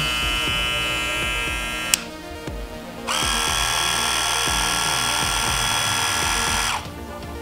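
Wahl Senior cordless hair clipper running with a steady hum, switched off with a click about two seconds in. About a second later an Oster Octane cordless clipper is switched on and runs with a louder, higher buzz for nearly four seconds, then is switched off.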